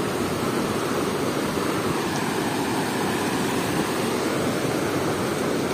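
Surf breaking and washing up over shallow sand: a steady rushing of water with no distinct breaks.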